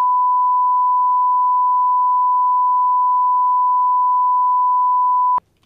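Steady 1 kHz line-up reference tone of the kind played with colour bars, a single pure pitch that cuts off suddenly with a click about five seconds in.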